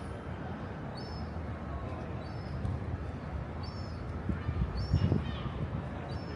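A small bird calling with short, high, falling chirps, repeated every second or so, over steady low city background noise, with a few dull thumps about four to five seconds in.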